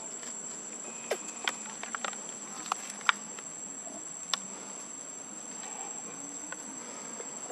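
Insects droning steadily at a high pitch, with a few short sharp sounds between about one and four and a half seconds in, the loudest about three seconds in.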